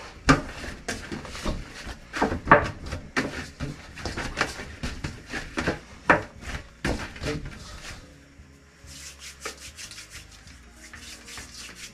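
Hands kneading chapati dough in a stainless steel basin: irregular slaps and rubbing strokes of the dough against the bowl, turning quieter about eight seconds in.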